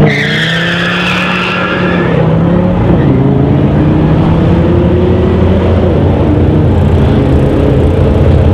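A Dodge Viper's V10 and a Chevrolet Camaro launching side by side from a standing start, with a burst of tyre squeal for the first couple of seconds, then both engines revving up through the gears as they pull away and fade with distance. A steady low engine drone sits underneath throughout.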